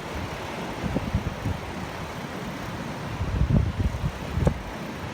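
Wind buffeting the microphone: irregular low rumbling gusts over a steady hiss.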